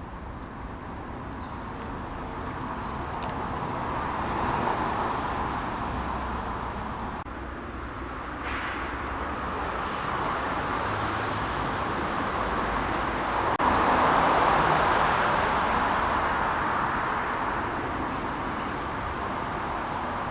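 Road traffic going by, a steady tyre-and-engine hiss that swells as vehicles pass, loudest about a quarter of the way in and again past the middle, then fades.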